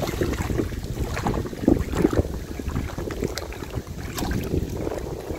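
A hooked seigo (young Japanese sea bass) splashing and thrashing at the water surface, heard as irregular small splashes and clicks over wind rumbling on the microphone. The splashes are loudest about two seconds in.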